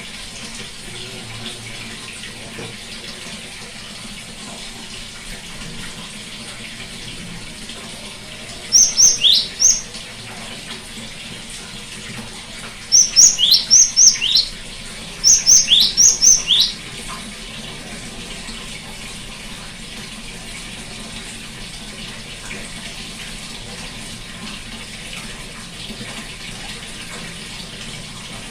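Great tit singing three short phrases of repeated high notes that each sweep downward. The phrases come about nine, thirteen and fifteen seconds in, over a steady background hiss.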